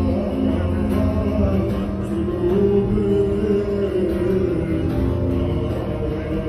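Live music: a man singing with an electric guitar, amplified through the room's speakers, a sustained melody over a steady low bass.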